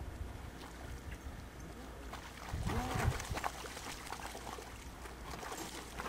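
A dog wading and splashing in shallow lake water, with a short rising-and-falling whine about three seconds in.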